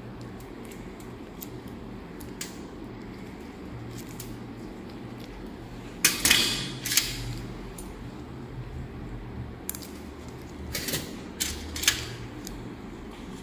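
Steel surgical instruments and gloved hands handling at a stainless steel operating table: scattered light metallic clicks, with short bursts of clatter and rustle about halfway through and twice more near the end. A steady low hum runs underneath.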